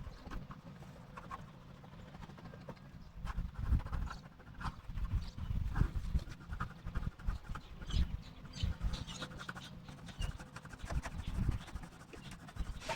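Irregular soft knocks, bumps and scraping, close to the microphone.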